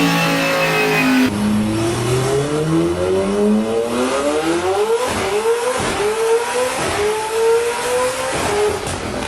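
Car engine under full throttle on a dyno, climbing in pitch through several pulls with brief drops between them as it shifts up, with a few sharp pops mid-way.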